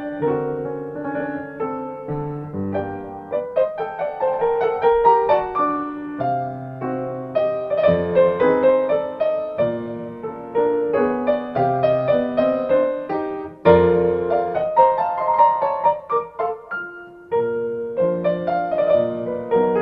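Background solo piano music, with a continuous run of notes.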